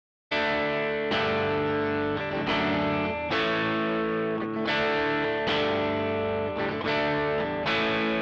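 Fender Telecaster Baja electric guitar playing overdriven chords through a Tech 21 Character Series British SansAmp pedal, recorded direct with added reverb. It starts a moment in, with about eight chords struck roughly a second apart, each left to ring.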